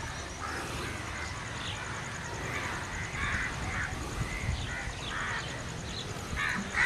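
Birds calling repeatedly: short, separate harsh calls every half second to a second, over low steady outdoor background noise.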